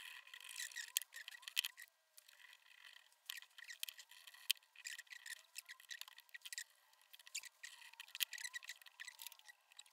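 Irregular light metallic clicks and taps of a machine vise's steel parts (leadscrew, guide rods, nuts) being handled and fitted back together by hand.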